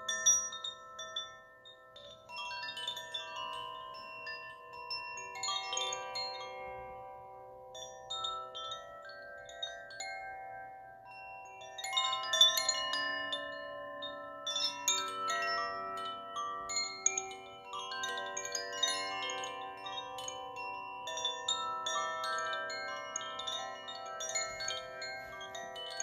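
Hanging cylindrical wooden chimes ringing in shimmering clusters of bell-like notes that overlap and sustain. The clusters swell and ebb, the loudest about halfway through.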